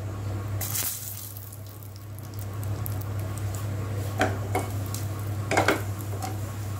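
A spoon stirring whole dried red chillies and cumin seeds in hot mustard oil in a non-stick kadhai, knocking and scraping against the pan a few times, over a light sizzle of the tempering.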